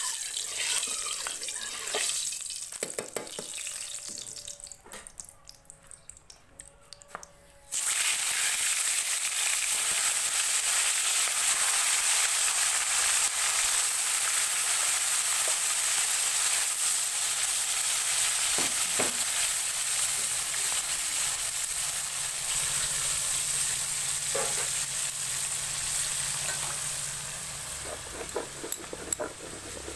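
Pieces of boal catfish frying in hot oil in an iron wok, a loud steady sizzle that starts suddenly about eight seconds in, after some quieter scraping of a metal spatula in the wok. Near the end the sizzle gives way to small knocks and scrapes from spices being ground on a grinding stone.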